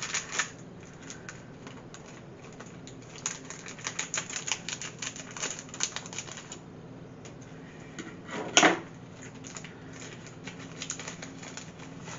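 Scissors snipping and crinkling open a Pocky snack wrapper: a run of small clicks and crackles, with one louder crackle about two-thirds of the way through.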